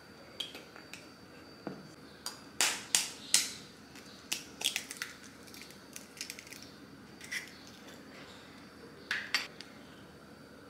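Baking prep sounds: sharp taps and clicks of a spoon, jar and egg against glass mixing bowls, scattered through, with the loudest three in quick succession a few seconds in.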